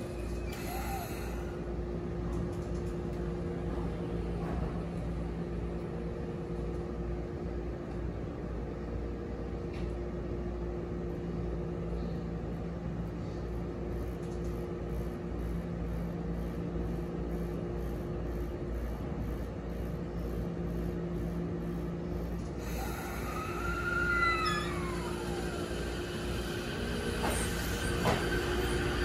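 Sotetsu 10000 series electric train standing at the platform with a steady hum from its onboard equipment. About 23 seconds in it starts off: the inverter whine rises and then falls in pitch, and wheel-on-rail noise grows louder near the end as the train pulls away.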